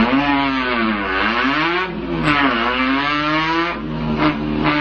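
A man's vocal imitation of a car engine revving, done with the mouth, its pitch swooping down and up several times like revs dropping and climbing, then holding a steadier, lower note near the end.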